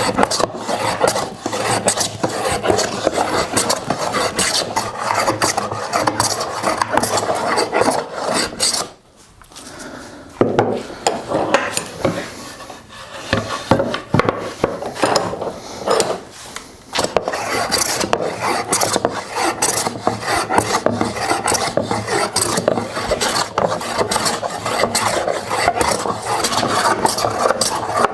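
Hand tool working wood in fast, repeated rasping strokes, with short breaks about nine and sixteen seconds in.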